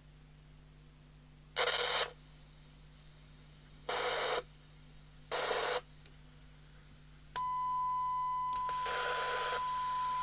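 Handheld CB radio's speaker on receive test: three short bursts of hiss, then, a little past halfway, a steady test tone from the signal generator comes through and holds, showing the radio receives.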